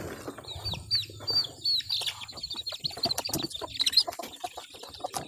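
A bird singing a quick run of short, high, falling chirps, about three a second, with scattered light clicks and taps underneath.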